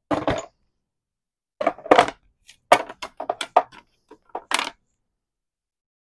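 Craft tools being cleared off a desk: several quick runs of clicks, clinks and knocks as hard plastic and metal pieces are handled and set down, then silence about five seconds in.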